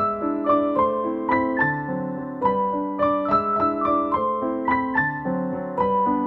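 Background piano music: a steady melody of notes, about three a second, over sustained lower notes.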